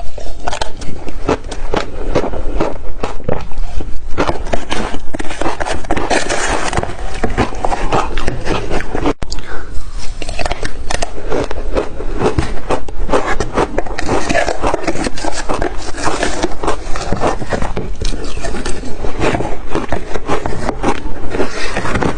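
Ice being bitten and chewed close to the microphone: a dense, continuous run of loud crunching and cracking, with a brief break about nine seconds in.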